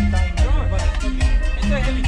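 Background music: a singing voice over a heavy bass line and a steady drum beat.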